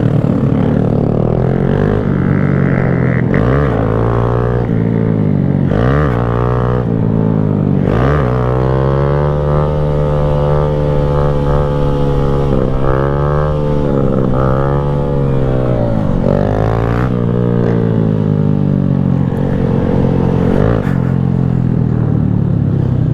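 Honda Grom's small single-cylinder engine being ridden through the gears, its pitch climbing and dropping again and again with a break at each shift. The engine is brand new and still being broken in, with only a mile or two on it.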